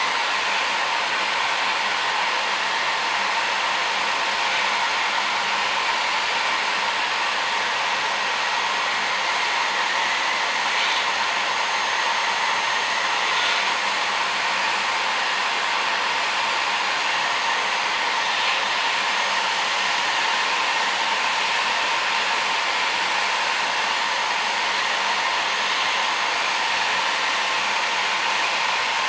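Heat gun blowing steadily, heating an LED bulb's aluminium LED board to loosen the solder on its LEDs. A few faint light ticks come through the hiss in the middle.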